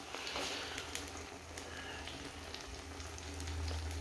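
Eggs and tomato slices frying in oil in a pan: a soft, steady sizzle with scattered crackling pops. A low rumble swells underneath in the second half.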